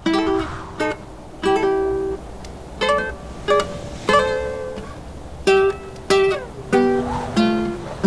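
Music: a plucked string instrument playing a slow melody of single notes, each struck and left to ring and fade.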